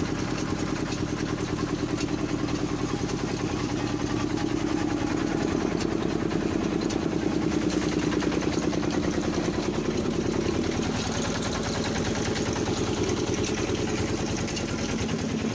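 An engine running steadily, with a fast, even pulsing beat.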